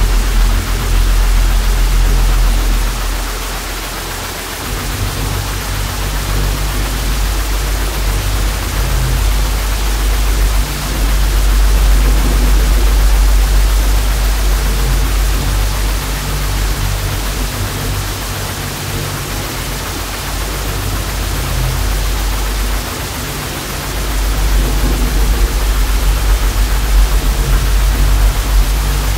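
Loud, steady TV static hiss over a deep, low droning hum. The hum thins out about four seconds in, swells again around eleven seconds, dips just before twenty-four seconds, then returns.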